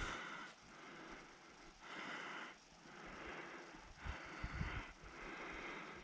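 A hiker's heavy breathing while walking uphill, about one faint breath a second, with a few soft footfalls about four seconds in.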